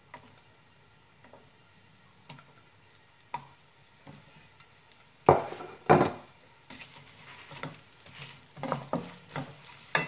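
Sliced red onion dropped into hot oil in a nonstick wok: light taps as the first pieces land, then two louder thuds about five and six seconds in as a handful goes in. The oil starts to sizzle just after, and near the end a wooden spatula knocks and scrapes against the pan as the onions are stirred.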